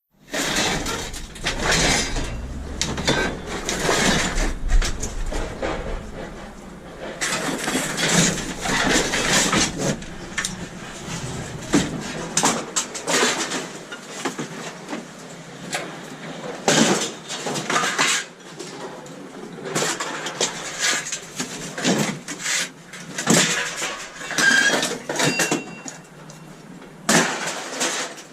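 Scrap metal being handled: repeated clanks, knocks and rattles as pieces are moved, struck and dropped.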